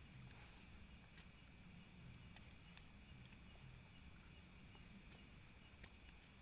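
Near silence with a faint steady chorus of night insects such as crickets, one short call recurring about every one and a half seconds, and a few faint clicks.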